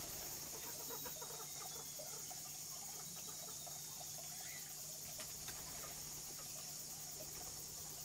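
Faint outdoor background: a steady high insect drone over a low hum, with scattered faint ticks.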